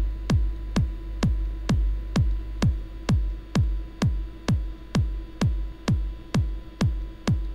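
Electronic kick drum looping at about two hits a second, each a short thump whose pitch falls quickly. It is the main kick of a layered pair, with its low band compressed by a multiband compressor. A faint steady tone runs underneath.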